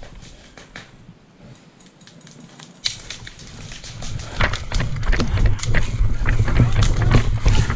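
Footsteps crunching through twigs and leaf litter with rustling of clothing and gear, quiet at first and growing louder and busier about four seconds in, with irregular sharp cracks.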